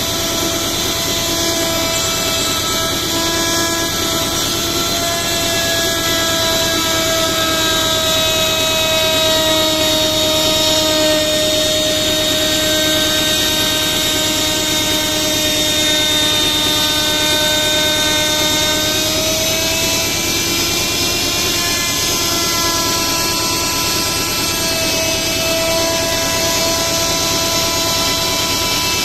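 An electric power tool running continuously, its motor giving a steady whine over a loud rushing noise. The pitch shifts slightly every few seconds.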